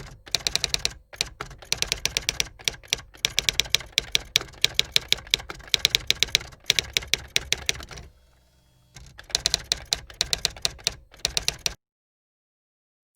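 Rapid runs of sharp, typing-like clicks, several a second, in spurts with a short lull a little after eight seconds; the sound cuts off abruptly near the end.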